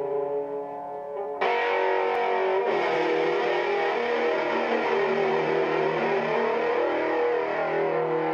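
Distorted electric guitar: a few held notes ringing at first, then about a second and a half in a louder, dense wall of distorted chords that carries on steadily.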